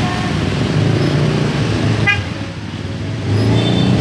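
Congested street traffic: car, minibus and motorcycle engines running steadily, with a short horn toot about halfway through and brief higher beeps near the end.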